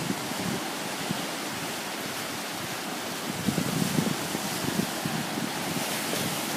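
Small sea waves washing onto the shore in a steady hiss, with wind buffeting the microphone in low, uneven gusts that pick up about halfway through.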